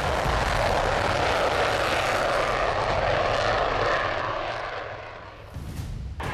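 Aircraft engine noise from an airplane passing, steady and loud for about four seconds, then fading away. There is an abrupt cut just before the end.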